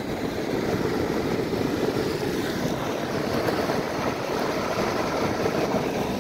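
Longboard's soft urethane wheels rolling over coarse asphalt: a steady rolling rumble.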